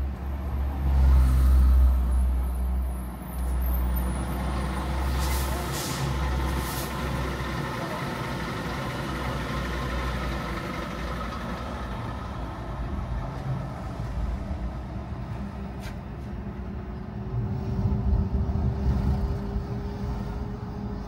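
A car driving on the road: steady engine and tyre rumble, heaviest in the first few seconds, with a few short hisses about five to seven seconds in. Near the end an engine tone rises slowly.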